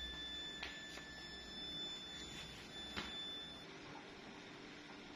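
Induction melting furnace giving a steady high-pitched whine over a low hum, with a few faint knocks; the whine stops suddenly about three and a half seconds in.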